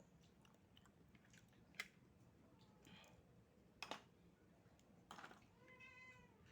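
A domestic cat meowing softly once near the end, with a few sharp clicks and taps earlier on, all faint.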